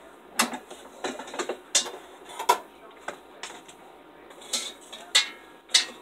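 Air fryer basket and kitchen utensils being handled: a run of about a dozen sharp clicks and clattering knocks, the loudest near the end.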